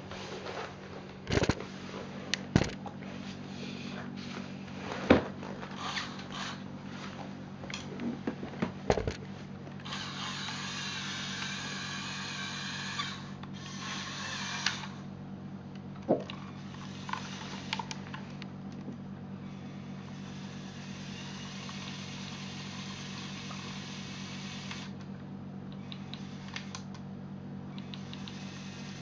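Plastic clicks and knocks from a Lego Technic model truck being handled and worked, scattered through the first half, with two longer stretches of whirring noise, over a steady low hum.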